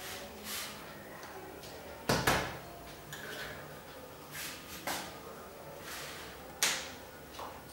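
Hands slapping together and against the body while signing: a few sharp slaps, the loudest a quick double about two seconds in and others near five and six and a half seconds, with soft rustling of hands and clothing between.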